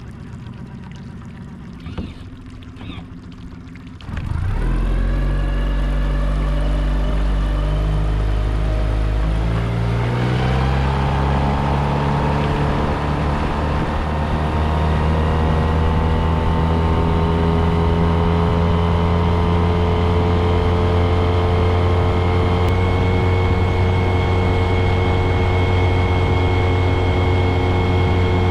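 An engine starts about four seconds in and idles. It is throttled up around ten seconds in, then runs steadily.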